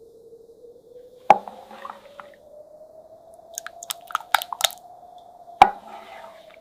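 Camp cookware being handled over a stove: a faint steady tone slowly rising in pitch, broken by two sharp knocks and a run of small clicks and taps.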